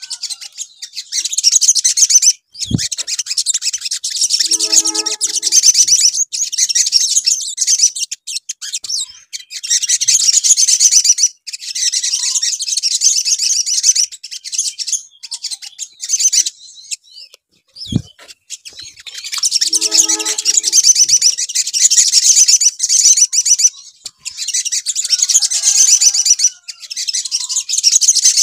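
Olive-backed sunbird (sogon) song: fast, high, rattling trills in phrases a few seconds long with short breaks. The same sequence, including a brief low thump, repeats about fifteen seconds in, as a looped lure recording meant to set other sunbirds singing.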